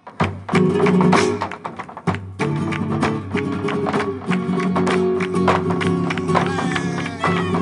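Live flamenco: guitar chords driven by sharp, dense percussive strikes from hand clapping (palmas) and footwork. A singing voice with sliding, ornamented pitch comes in near the end.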